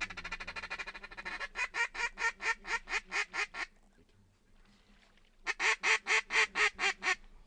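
Mallard-style quacking: a fast chatter, then a run of about eight evenly spaced quacks, and after a pause of nearly two seconds a second, louder run of about eight quacks.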